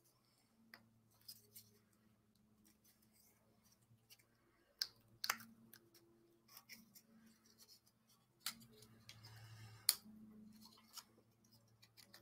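A handful of scattered sharp clicks and taps as small painted puzzle pieces are handled and pulled apart, the loudest about ten seconds in, over a faint steady low hum.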